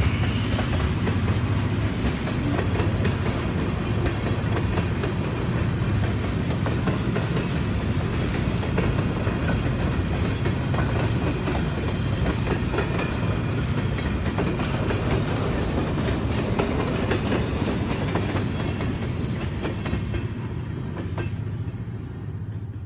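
Freight cars (tank cars and covered hoppers) rolling past, with a steady run of wheels clicking and clacking over the rail joints. The sound fades near the end as the last car goes by.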